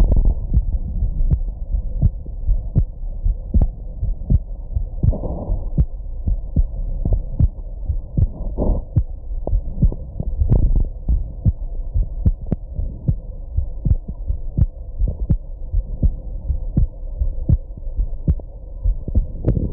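A person's heartbeat recorded close up: a steady rhythm of dull, muffled thumps. Two brief, softer, noisier sounds come about five and eight and a half seconds in.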